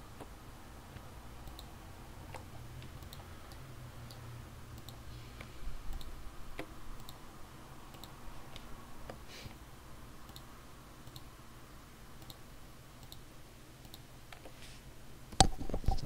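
Computer mouse clicking at irregular intervals, with one louder click near the end.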